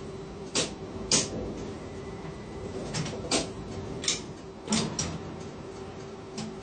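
Ship-to-shore container crane heard from the operator's cabin while the tandem spreader is lowered into the hold: a steady mechanical hum with irregular sharp clicks and knocks, about eight of them.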